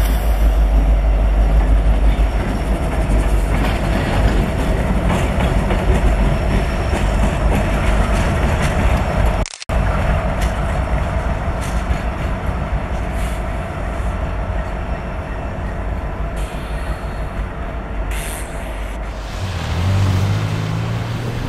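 Diesel-electric freight locomotives passing close by: a steady heavy rumble of engines and wheels on rail, with a faint steady whine over it. The sound cuts out for an instant about halfway through, then the train noise goes on, turning into a lower, steadier engine drone near the end.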